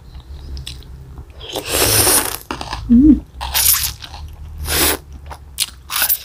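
Close-miked eating sounds: instant noodles slurped in several short, hissing bursts, with chewing of soft noodles and bakso aci in between. There is a brief closed-mouth hum about three seconds in.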